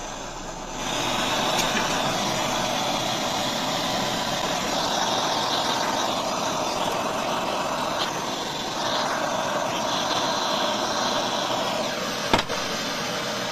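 A gas torch flame hissing steadily as it heats the ceiling fan's bearing housing to free the seized lower bearing. It starts about a second in and stops near the end, followed by a single sharp click.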